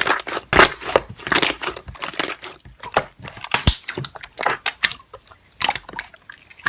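Slime being pressed and worked by hand, making irregular crackling pops and squishes, several clicks a second.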